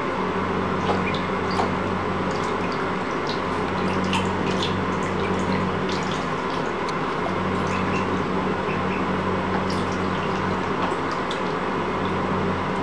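Bathwater splashing and dripping as ducklings paddle through it, with many small, sharp splashes. A steady low hum runs underneath and drops out for a few seconds from about three seconds in.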